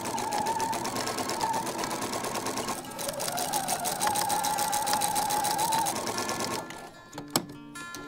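Electric sewing machine running at speed, stitching lace onto the gown fabric, with a rapid even stitch rattle over a motor whine. It eases off briefly about three seconds in, speeds back up with a rising whine, and stops shortly before the end.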